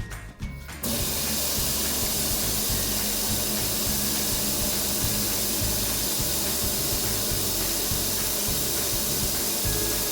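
Water spraying with a loud, steady hiss that starts abruptly about a second in.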